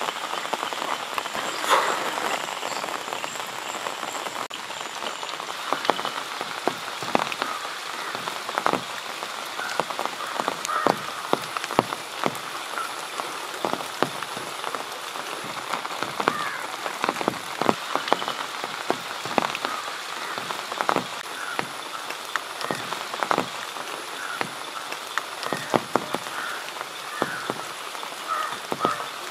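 Steady rain falling, with big drops hitting close by one or two times a second. Frogs call in short croaks throughout.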